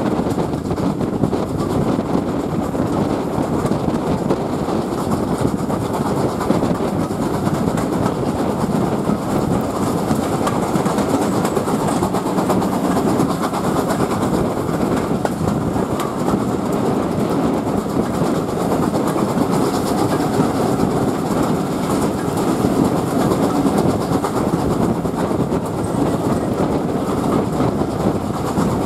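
Steam-hauled train heard from an open window of the coach just behind a GWR tender steam locomotive: the engine's exhaust and the train's wheels running over the track make a steady, continuous clatter.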